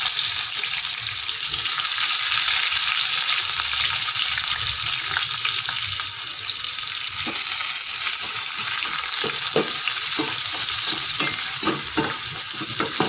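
Freshly added sliced onions sizzling in hot oil in a stainless steel kadai, frying on the stove. A spatula clicks and scrapes against the pan as they are stirred, more often in the second half.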